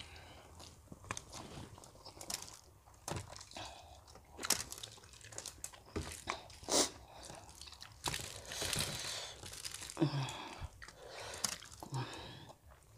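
Close-miked mukbang eating sounds: two people biting into crunchy fried chicken and chewing it with spicy instant noodles. The sound comes in irregular crunches and wet chewing bursts.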